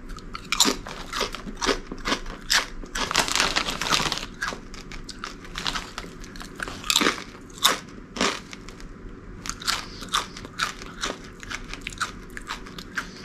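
Crunching of Takis Kettlez kettle chips being bitten and chewed: irregular crisp crunches, densest in the first four seconds or so, then sparser chewing.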